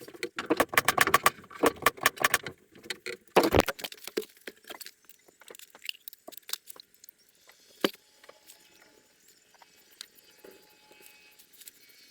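Rapid clattering and rattling of small hard objects being handled, then a heavier knock about three and a half seconds in. Scattered clicks follow and die away, with one sharp click near the end.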